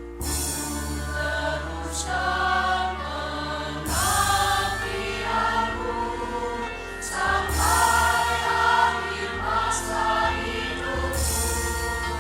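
Teachers' choir singing over an orchestral accompaniment, with low notes held beneath the voices.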